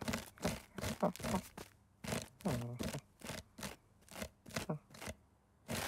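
Cartoon kitten clawing at a scratching post: a quick run of short scratchy strokes, with a few brief voiced kitten grunts and chirps among them, the longest one about halfway through.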